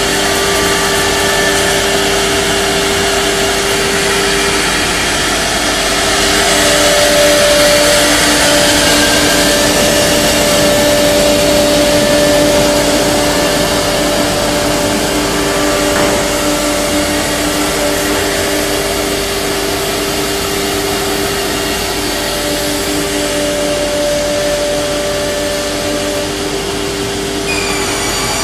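Four-spindle CNC router cutting a wood panel: a steady whine from the spindles, with several held tones over the rushing noise of dust extraction, getting a little louder about six seconds in.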